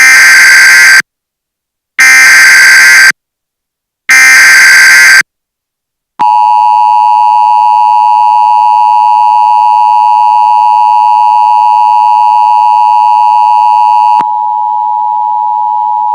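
Emergency Alert System SAME header: three one-second bursts of harsh data screech, a second apart, followed by the eight-second two-tone EAS attention signal, a steady loud alarm tone. Near the end it gives way to a quieter single steady tone. Together they signal the start of a new alert broadcast.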